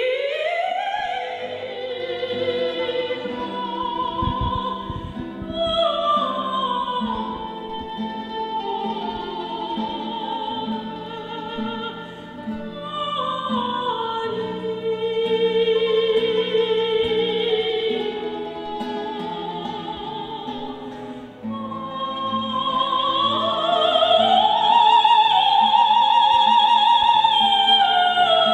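Soprano singing in classical operatic style with wide vibrato, accompanied by plucked classical guitar. Her line climbs about three-quarters of the way through to a long held high note, the loudest part.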